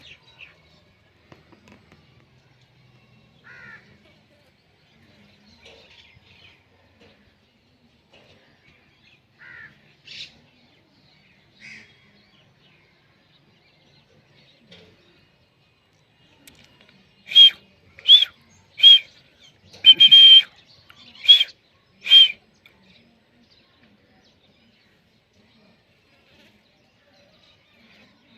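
A parrot calling: a few faint chirps, then past the middle a run of six loud short calls, each under a second apart.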